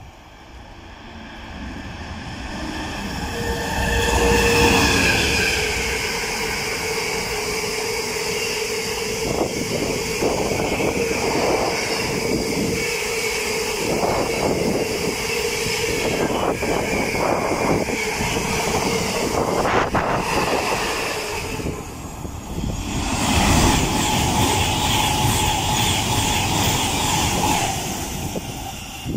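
A freight train of empty flat wagons passing through at speed, building up over the first few seconds, with wheel clatter and a steady ringing tone. About two-thirds of the way in, a brief dip is followed by an Avanti West Coast Class 390 Pendolino electric train passing.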